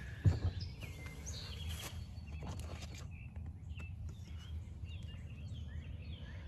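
Birds chirping faintly over a low steady outdoor rumble, with a few light clicks as a hand picks a card out of a truck's door-sill trim.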